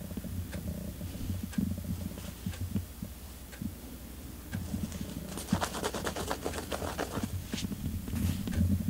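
A cat playing under a felt blanket with a fur pom-pom toy: soft bumps and rustling on the cloth and carpet, then a burst of rapid scratching a little past halfway. A clock ticks faintly about once a second.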